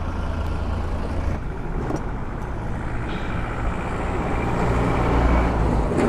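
Steady low rumble of a motor vehicle's engine running, growing a little louder near the end.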